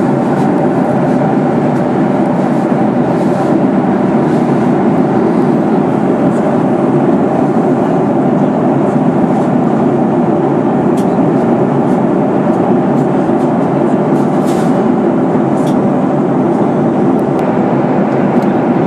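Steady cabin noise inside a Boeing 737-800 in flight: airflow and the CFM56 engines, heard from a window seat over the wing, with a faint steady hum running through it.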